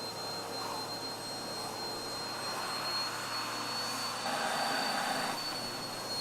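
Vacuum cleaner motor running steadily with a high whine, sucking the air out of the bag sealed around a person in the vacuum challenge. A brief louder stretch comes about four seconds in.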